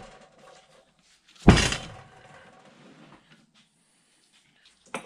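A single heavy clunk of the cast-iron Bridgeport milling vise knocking against the wooden workbench about a second and a half in, with a brief metallic ring, followed by light scraping and handling noise.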